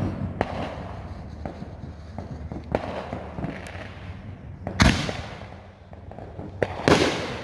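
Consumer fireworks going off: a run of sharp pops and crackles, with two loud bangs about five and seven seconds in, each trailing off in a fading rush of noise.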